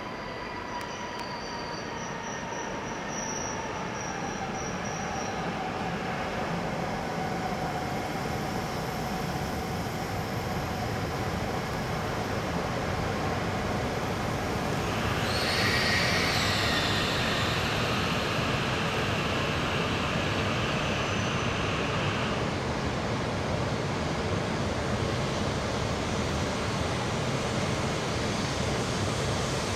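E5 and E6 series Shinkansen coupled train rolling slowly into the platform, getting louder as it comes closer, with a whine that falls in pitch as it slows. About halfway through, high-pitched wheel squeal lasts several seconds as the train takes the points and curve onto the platform track, and a squeal starts again near the end.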